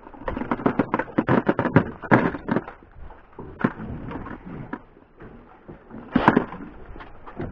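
Metal fishing jigs and hooked lures clinking against each other and knocking on a plastic bucket lid as a hand sorts through them: a run of quick, irregular clicks, with a louder knock about two seconds in and another just after six seconds.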